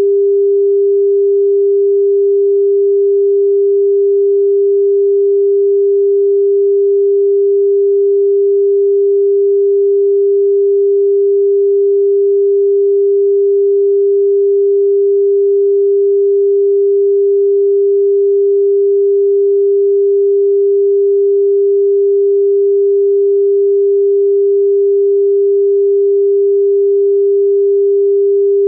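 A steady pure sine tone of about 399.5 Hz (399.471 Hz, the frequency the uploader assigns to balloon flower root, Jie Geng), held unchanged at one pitch and level with no other sound.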